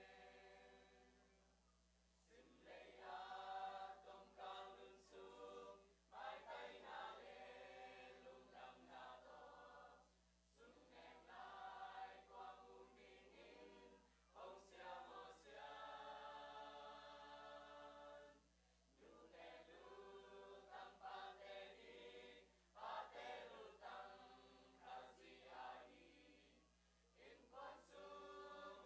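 Youth church choir of mixed boys' and girls' voices singing a hymn, in phrases of about four seconds with short breaks between them.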